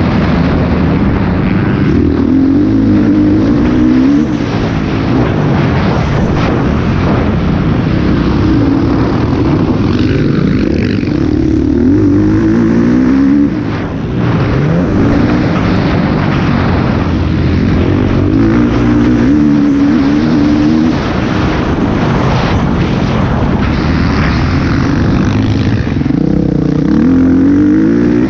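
Motocross bike engine under hard riding, heard from a camera on the bike: the revs climb and drop again and again as the rider accelerates, shifts and rolls off, with a brief throttle-off about halfway through.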